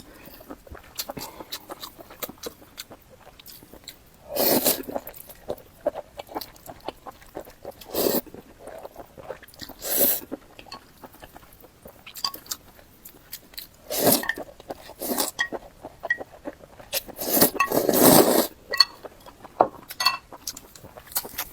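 Close-miked eating sounds: wet chewing and small mouth clicks throughout, broken by about five louder noisy bursts a second or so long.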